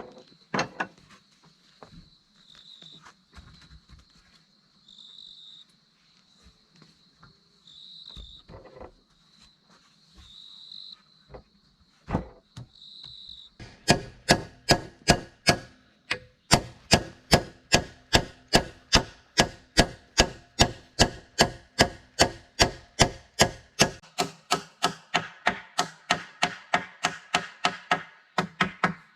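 Scattered knocks and taps, with an insect chirping in short pulses at a high, steady pitch. About halfway through, fast, even chopping strikes begin at about three a second.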